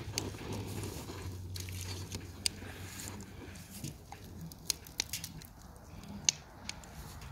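Dog crunching roasted chestnuts: irregular sharp cracks and clicks of the nuts breaking between its teeth, coming thicker and louder from about four seconds in.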